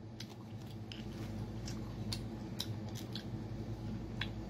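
Close-miked eating of spicy shellfish: scattered small clicks and crackles of chewing and of fingers picking at the shells, over a steady low hum.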